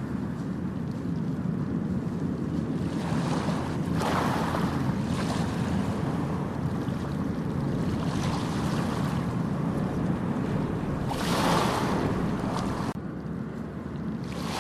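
Ocean waves breaking and washing up a beach: a steady low rumble of surf with swells of hiss as each wave breaks, the loudest about eleven seconds in.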